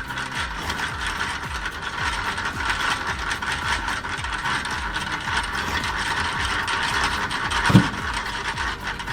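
Homemade wood splitter running, its mechanism clattering and ticking steadily, with a single heavy thump about three-quarters of the way through.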